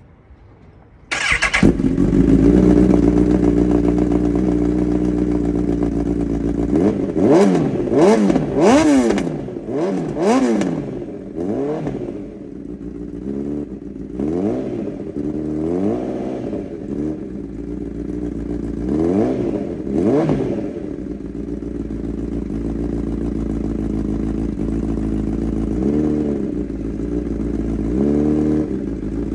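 Honda CB1000R's inline-four engine, breathing through a Black Widow aftermarket exhaust, starts up about a second in and settles to a steady idle. It is then blipped on the throttle several times: a quick run of revs from about a quarter of the way in, and a few single revs spaced out later.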